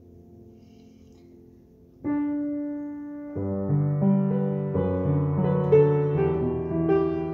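Solo piano: a soft held chord dies away, then about two seconds in a single note sounds, and from about three and a half seconds fuller chords build into the next hymn tune.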